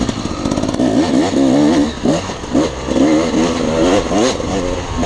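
Dirt bike engine under hard riding, its revs climbing and dropping over and over as the throttle is worked, with a few quick dips and pickups about two seconds in.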